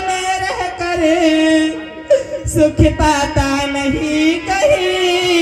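A voice singing long, wavering held notes through a microphone and loudspeakers, accompanied by harmonium and hand-drum strokes.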